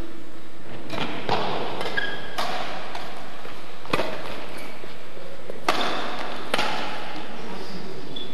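Badminton rackets striking a shuttlecock in a rally: sharp hits about a second or two apart, each echoing briefly in a large sports hall.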